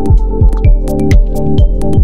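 Electronic dance music with a deep kick drum that drops in pitch on each beat, a little over two beats a second, and sharp hi-hat ticks between the beats over sustained synth tones.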